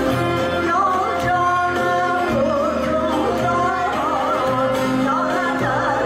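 A woman sings a Turkish folk song solo, live into a microphone, her voice bending through ornamented turns. A Turkish folk ensemble with bağlamas accompanies her with steady sustained notes.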